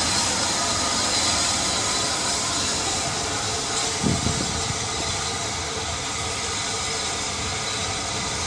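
Rebuilt West Country class steam locomotive moving slowly with a steady hiss of steam. There is a brief thump about four seconds in.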